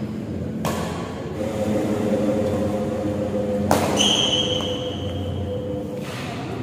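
Badminton rackets striking the shuttlecock in a doubles rally, with the echo of a large hall: two sharp hits, about half a second in and near the middle. A high steady tone rings on for about two seconds after the second hit.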